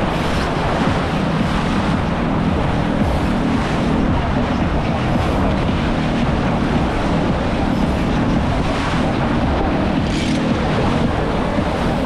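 Steady wind noise on the microphone over water rushing and splashing past a racing sailboat's hull in a strong breeze.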